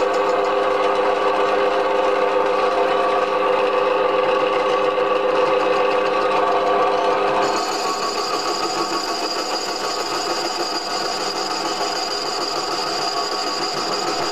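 Metal lathe running with its chuck spinning: a steady whine from the motor and gearing. The tone shifts about halfway through, with the lower whine dropping away and a higher one coming in.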